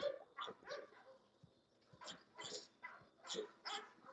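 Young bulldogs at a wire pen giving a string of short, quiet huffs and barks, with a pause of about a second near the middle.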